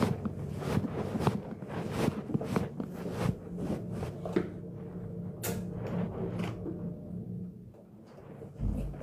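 Footsteps and handling knocks along a hotel room's entry hallway over a steady low hum, with one sharp click about halfway through. Near the end comes a low thump as the room door is opened.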